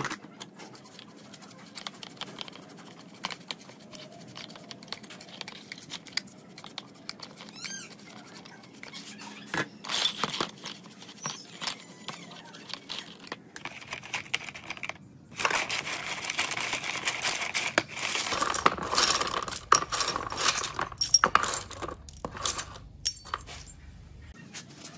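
Stiff brush scrubbing small steel engine parts in a tray of liquid, with bolts, nuts and washers clicking and clinking against each other and the tray. The scrubbing and rattling grow louder and busier about two-thirds of the way in.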